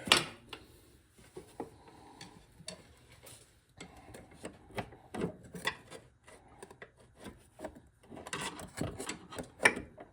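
Irregular clicks, taps and scraping of hands working a metal hose clamp along a hydraulic hose. There is a sharp click right at the start and a busier run of clicks and rubbing near the end.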